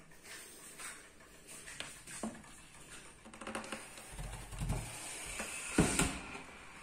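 A hand handling the wooden case of a mantel clock, making irregular light knocks and rubbing, with a sharper knock near the end.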